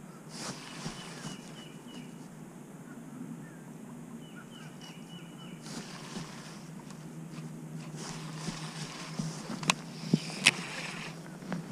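Outdoor lakeside background with a bird singing short phrases of quick chirps twice, rustling as the rod and reel are handled, and a few sharp clicks near the end from the baitcasting reel.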